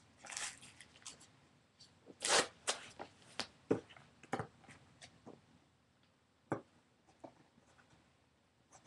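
Packaging being handled and torn open by hand: irregular rustles, scrapes and a few sharp clicks, the loudest about two and a half seconds in.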